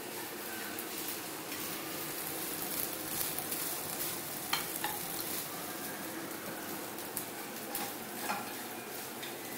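Stir-fry sizzling steadily in a nonstick frying pan on a gas burner while a spatula stirs and scrapes through the food, with a few sharp clicks of the spatula against the pan about halfway through and again near the end.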